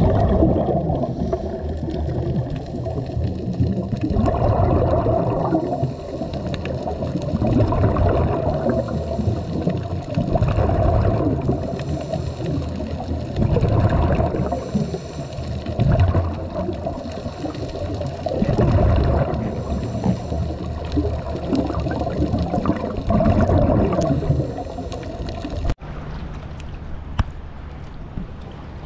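Underwater sound of scuba divers breathing through their regulators: exhaled bubbles gurgling and rushing in surges every two to three seconds. Near the end it cuts to a quieter, steadier sound of water at the surface.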